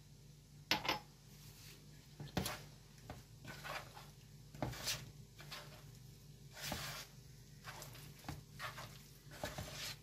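Hand mixing soft margarine, oil, corn starch and powdered sugar in a bowl: soft squishing and rubbing swishes, with irregular sharp taps and knocks on the bowl, the loudest about a second in.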